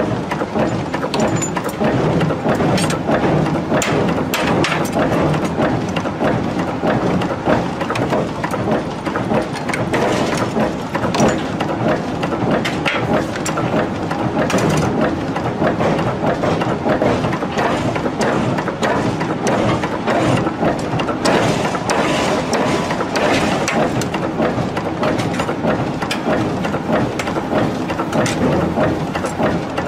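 Forging presses and dies at work on hot steel, a dense, unbroken clatter of overlapping metallic knocks and machine noise.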